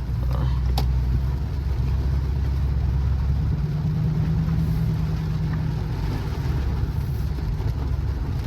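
Chrysler 300C's Hemi V8 running while the car drives on a wet road, a low steady drone over tyre and road noise. The engine note shifts about three and a half seconds in.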